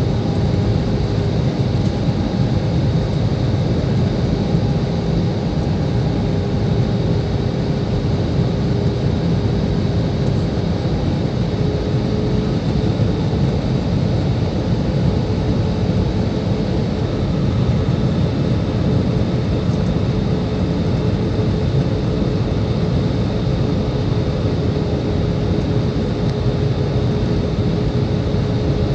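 Steady in-flight cabin noise of an Airbus A320 airliner: the drone of the jet engines and the rush of air over the fuselage, with a faint steady hum.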